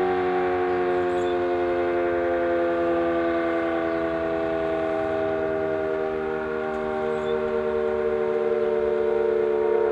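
Sterling M-10 electromechanical tornado siren with an 8/16-port rotor, sounding its two-tone chord during a test, the pitch slowly falling as it winds down.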